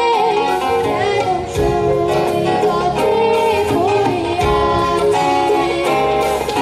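A boy singing a Bengali song into a stage microphone, with gliding, ornamented vocal lines over instrumental accompaniment.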